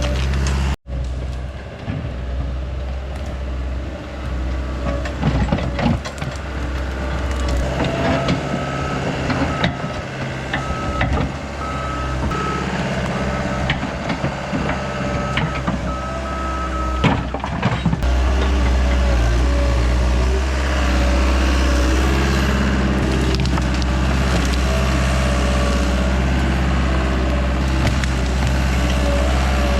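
CAT 242B skid steer's diesel engine running under load while it works dirt, with crunching and scraping. Midway through, its backup alarm beeps about once a second for several seconds.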